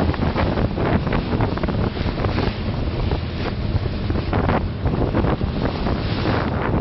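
Small passenger ferry underway: a steady low engine drone under rushing water and wind buffeting the microphone in gusts.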